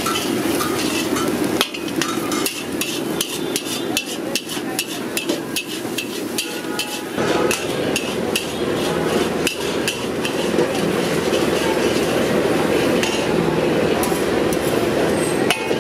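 Steel spatula clanking and scraping rapidly against a large iron wok as fried rice is tossed, many quick metal strikes, thickest in the first half and thinning out toward the end.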